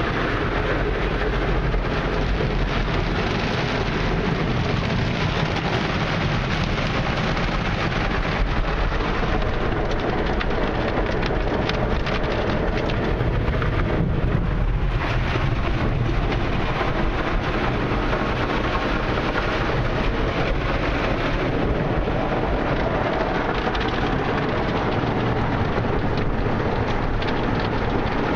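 A Ryko SoftGloss XS 2 automatic car wash at work: red foam brushes scrub across an SUV's body and windows while water sprays down, heard from inside the cabin as a steady wash noise over a low rumble.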